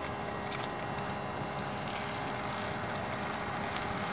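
Gasifier gas burner running steadily under a skillet, with scattered small crackles of an omelet frying in the pan.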